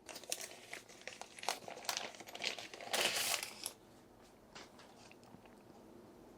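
Plastic packaging crinkling and rustling as it is handled and unwrapped, with small clicks mixed in. The handling dies down a little over halfway through, leaving only a few faint ticks.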